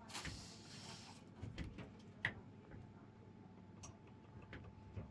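A brief rustle in the first second, then a few faint, scattered clicks from a Keychron V1 mechanical keyboard.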